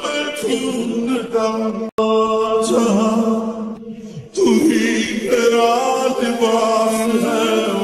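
Background music: chanted singing over a steady held drone. It breaks off sharply for an instant about two seconds in, dips around four seconds, then comes back fuller.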